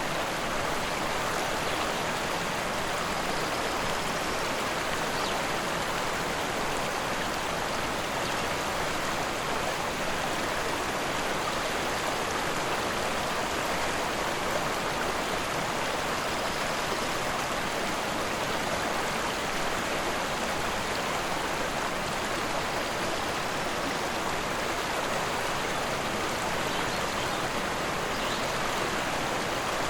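A forest river rushing steadily: a constant, even wash of flowing water with no breaks or changes.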